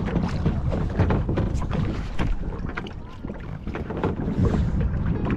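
Water splashing and lapping around a kayak in irregular small splashes, with wind rumbling on the microphone.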